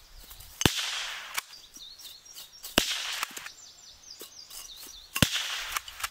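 Three sharp .22 Long Rifle shots from a Blaser R8 straight-pull rifle fitted with its rimfire conversion kit, about two seconds apart. Faint birdsong chirps between the shots.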